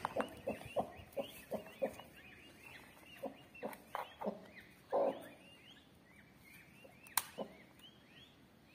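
Broody hen clucking in short low notes, about three a second at first and then more sparsely, with one longer, louder call about five seconds in. Under it, the thin high peeping of newly hatched peachicks. A sharp click comes about seven seconds in.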